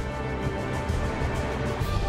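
Background music of sustained chords, with a deep low note swelling in near the end.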